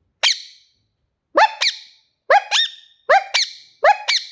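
Pet green parrot calling: one short call, then four quick double calls about a second apart, each note a sharp rise and fall in pitch.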